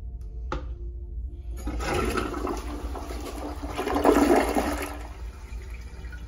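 Kohler Cimarron toilet with a Revolution 360 swirl bowl flushing: a click about half a second in, then a rush of swirling water from about a second and a half in, loudest around four seconds, easing off after about five seconds.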